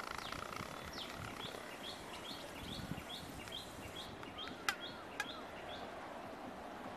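A bird calling over steady outdoor background noise: a short rising note repeated about two or three times a second, which stops past the middle. Two sharp clicks come about half a second apart near the middle.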